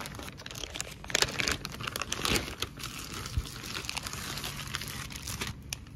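Clear plastic packaging wrap crinkling and crackling as it is handled, in irregular bursts that are loudest about a second in and again just after two seconds.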